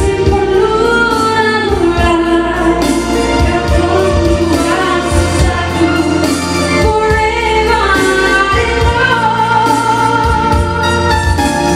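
A woman singing solo with live band accompaniment, holding long notes that bend in pitch over a steady bass and drum beat.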